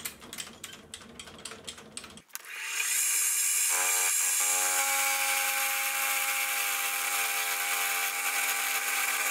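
Milling machine with an insert face mill taking a cleanup pass on a piece of scrap steel. After a few faint clicks, a steady machine hiss starts suddenly about two seconds in. A steady multi-tone hum joins about four seconds in as the cutter works across the steel.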